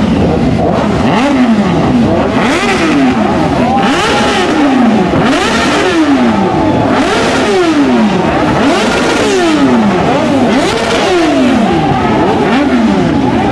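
Several superbike engines revving over and over, overlapping, their pitch climbing and dropping roughly every second.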